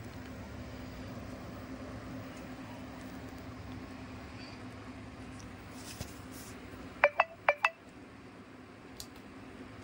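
Steady low hum with faint hiss, then about seven seconds in four sharp clinks in two quick pairs, each ringing briefly at a fixed pitch, like a hard metal or glass object being tapped.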